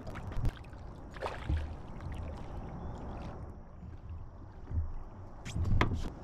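A hooked smallmouth bass splashing at the surface beside a plastic fishing kayak as it is played in and lifted from the water, with scattered knocks of gear against the hull. The biggest splash comes near the end.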